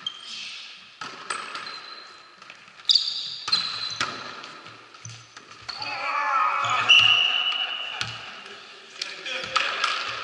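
Volleyball rally in a gymnasium: a string of sharp smacks of the ball being struck, short high sneaker squeaks on the sports floor, and players calling out about six seconds in, all echoing in the large hall.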